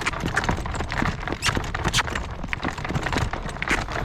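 Morgan horse's hooves beating quickly and unevenly on the road as he goes at speed in harness, urged from a trot toward a canter. Gusty wind rumbles on the microphone underneath.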